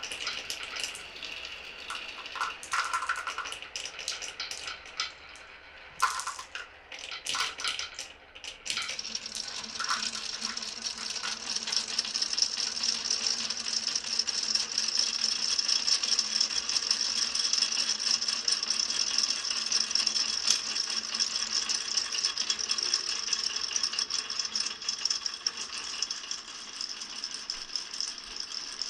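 Marbles rolling and clattering through a toy marble run. For the first nine seconds or so there are separate clicks and knocks. Then a continuous dense rattle of many marbles running together takes over.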